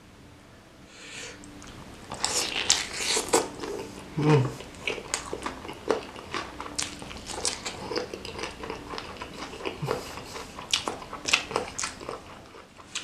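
Close-miked chewing of a mouthful of beef meatball, noodles and whole green bird's-eye chilies: wet mouth clicks and crisp crunching. The chewing starts about two seconds in and is densest just after.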